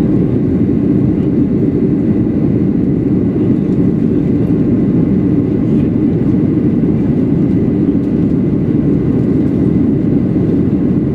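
Steady low rumble of a Boeing 737-800's CFM56-7B turbofan engines and rushing airflow, heard from inside the passenger cabin in flight, with a faint high steady tone over it.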